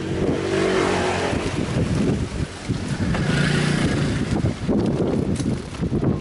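Wind buffeting a microphone that is moving along at cycling speed: a loud, uneven low rumble with a hiss over it.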